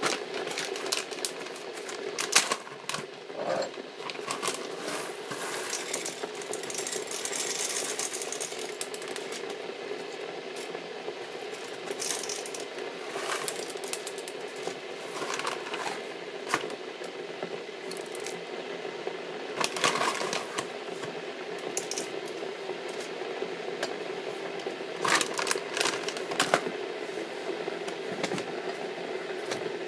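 Coffee beans poured into the metal hopper of a Zassenhaus hand coffee grinder, rattling and clicking in scattered bursts over a steady background hum.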